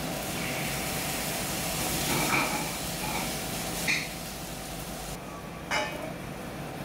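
Steady background room noise with faint voices in the first half, and two short clinks, about four and six seconds in.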